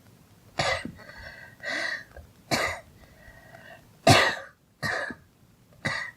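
A girl coughing in a series of about six separate coughs, roughly a second apart, the loudest about four seconds in.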